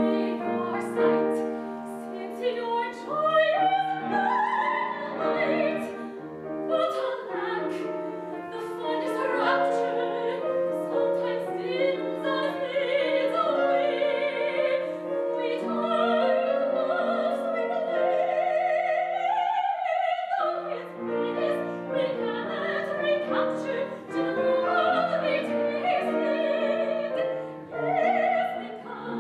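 Female operatic soprano singing an aria with vibrato over piano accompaniment, her line climbing and running through florid passages, with a short break in the voice about 20 seconds in.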